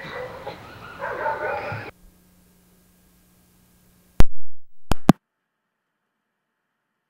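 Home-video sound with voices stops abruptly about two seconds in, leaving only a faint steady hum. About four seconds in comes a loud sharp pop, then two more close together a moment later: the switching clicks of a VHS tape passing from one recording to the next.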